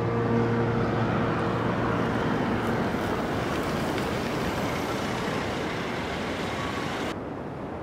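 A car driving up, its engine and tyre noise a steady rush, while a sustained music chord fades out in the first two seconds. The higher part of the rush cuts off abruptly about seven seconds in.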